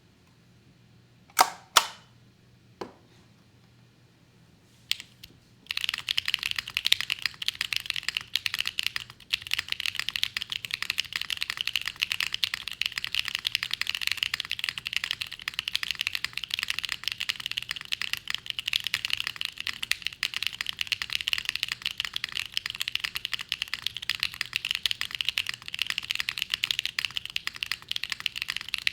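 Mechanical keyboard, a Pluto FRL with stock Gateron Blizzard linear switches, an FR4 plate and PBT keycaps, being typed on. A few separate keystrokes come first, then fast, continuous typing from about six seconds in.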